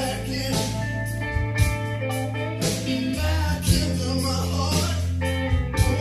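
Blues-rock song with male singing, electric guitar, bass and a steady drum beat, played through a pair of Dahlquist DQ-20 floor-standing loudspeakers and picked up in the room.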